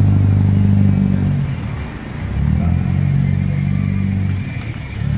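A motor vehicle's engine running close by, easing off about two seconds in and picking up again.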